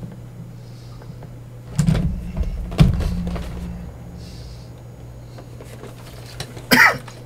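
Packaging being handled while a figurine box is opened: low thumps about two and three seconds in, and a short, sharp scrape or clatter near the end, over a steady low hum.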